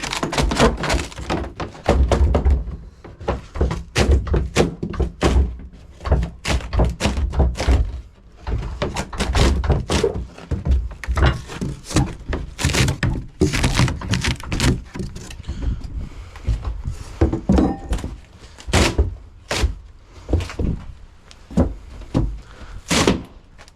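Crowbar prying at and knocking against a fridge-freezer's sheet-metal panel: a long run of irregular thunks and metal knocks as the panel is forced up.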